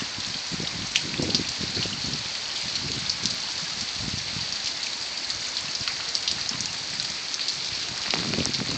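Heavy rain falling steadily, a dense hiss of drops striking surfaces.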